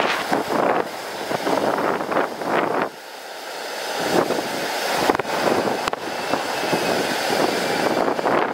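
Strong gusty wind buffeting the microphone in uneven rushes, with a steady whine from a jet airliner's engines growing louder underneath from about three seconds in.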